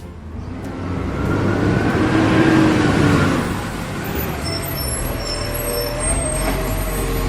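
A motor vehicle's engine running, swelling in loudness after about a second, with a faint whine that rises and falls, over a steady low hum.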